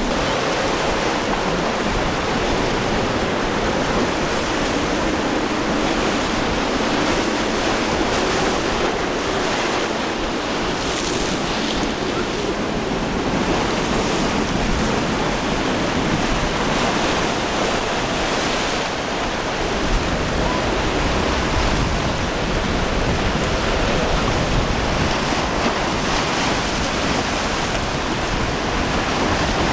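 Surf and breaking waves rushing steadily in rough water, with wind buffeting the microphone.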